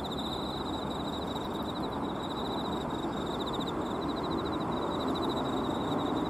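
Insects singing in the grass, a high, rapidly pulsing chirp in runs with short breaks, over a steady low rush of background noise.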